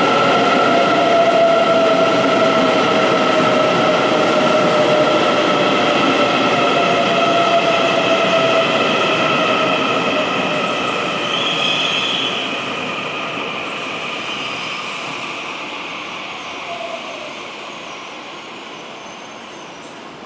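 EMU800 electric multiple unit slowing into the station: a whine that slowly falls in pitch and steady high wheel squeal over a rolling rumble, all fading steadily as the train comes to a halt.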